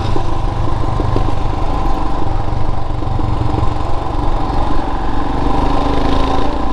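Motorcycle engines running steadily while the bikes cruise at low speed, with wind and road noise on the microphone.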